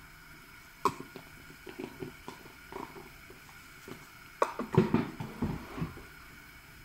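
Kitchen handling sounds at the stove as spices go into a steel saucepan: a sharp knock about a second in, scattered light taps and clinks, then a louder run of knocks and clatter from about four and a half to six seconds in.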